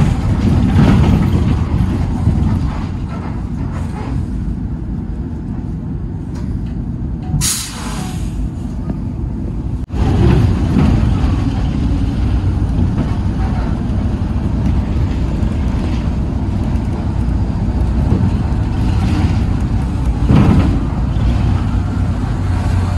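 Cabin noise of a 2011-model city bus under way: a steady low rumble of engine and drivetrain, from an engine the owner calls rather bad and somewhat noisy. About seven and a half seconds in there is one short, sharp hiss of air from the air brakes.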